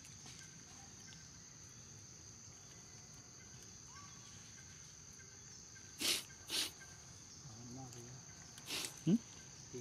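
Steady high-pitched insect drone in the forest, with two short loud bursts of noise about six seconds in and a third near nine seconds, followed by a brief rising squeak.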